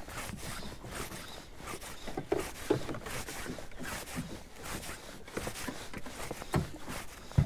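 Irregular rustling and light clicks from a fly rod and line being handled in a small boat, with a few sharper knocks, the sharpest at the very end.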